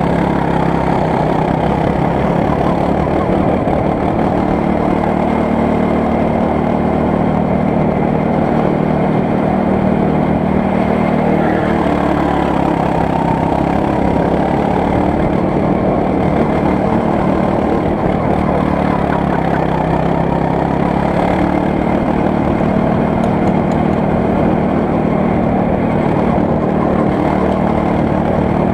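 Go-kart engine running continuously as the kart laps the track, heard close up from a camera on the kart itself. The engine note holds steady, with small shifts in pitch through the corners.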